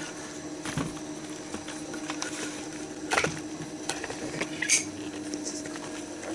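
Cast-iron pot of goulash boiling hard on a gas hob, bubbling with many small scattered pops over a steady hum. Two sharper clicks come about three and five seconds in.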